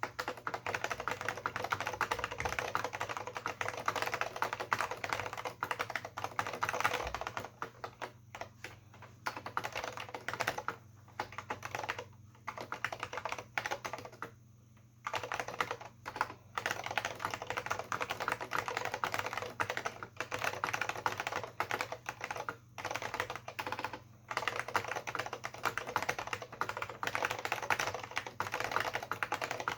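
Typing on an AT&T Unix PC keyboard with Alps SKCM Brown switches and PBT dye-sub keycaps: a fast, continuous patter of key clicks, broken by a few short pauses in the middle.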